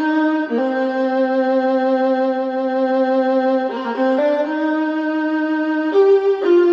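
Violin music played back through a Mission 761i loudspeaker from 1995: long held notes that change pitch every second or two, then quicker notes near the end.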